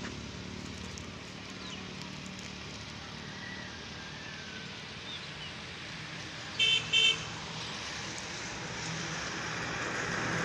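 Road noise and a low engine hum from inside a moving car. A horn gives two short toots a little past two-thirds of the way through, and the road noise grows louder near the end.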